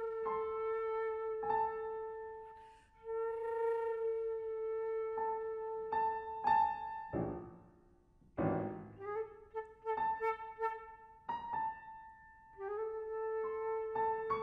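Concert flute holding long sustained notes over struck chords from a Yamaha grand piano, in a contemporary duo piece. About seven seconds in the flute drops out and the piano plays low chords and short scattered notes, then the flute's held tone comes back in about two seconds before the end.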